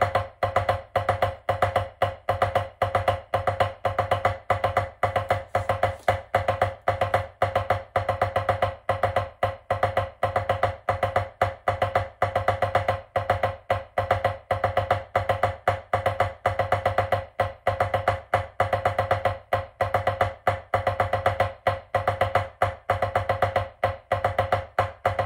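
Drumsticks playing a sixteenth-note-timing warm-up exercise on a drum: a continuous stream of even-height strokes with a regular pulse. It stops sharply at the end.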